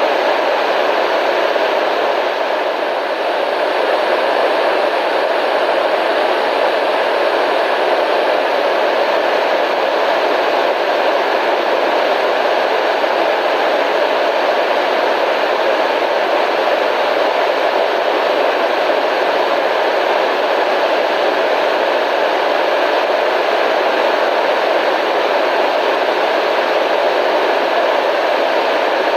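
Steady radio static: an even hiss that runs without change, fullest in the middle range with little bass.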